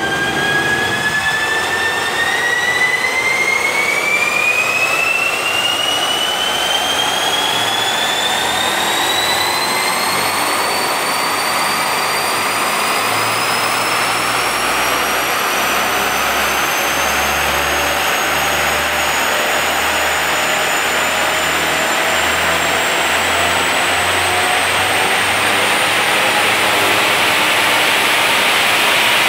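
A BMW E60 530d under full throttle on a chassis dynamometer, its wheels spinning the rollers up to high speed: a loud rush of noise with a whine that climbs smoothly and steadily in pitch as road speed rises.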